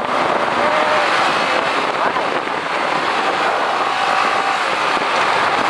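Steady rush of wind and road noise on the microphone of a motorcycle riding through traffic.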